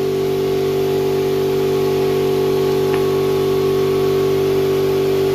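Steady machine hum at an even pitch, constant in level throughout.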